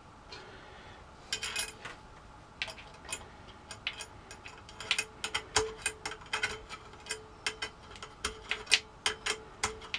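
Light metal clicks and taps as stainless steel bracket parts and screws are handled and adjusted on the bandsaw, scattered at first and coming thicker and faster from about halfway, some with a brief metallic ring.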